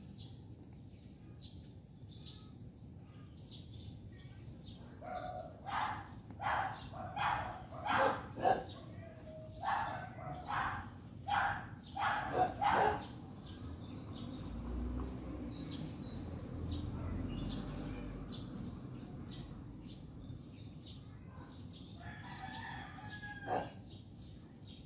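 A rooster crowing in a run of pitched calls through the middle seconds, followed by a low rumble lasting a few seconds and a shorter bird call near the end.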